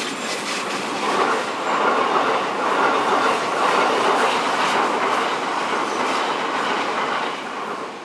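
Electric train passing close by at speed, its wheels clicking over rail joints. The noise builds over the first second, stays strong for several seconds and falls away near the end as the train goes by.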